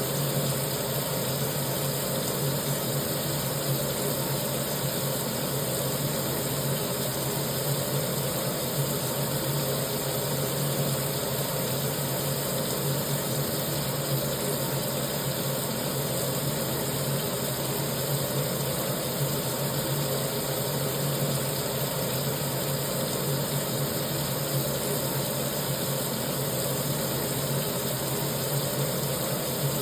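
Kitchen sink tap running steadily, water pouring into the basin: an even rushing noise with a steady low hum underneath.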